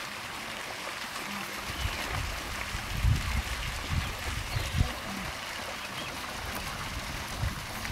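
Shallow river water splashing and sloshing as a herd of wildebeest and zebras wades through it, over a steady hiss. Irregular low rumbles come from about two to five seconds in, loudest twice.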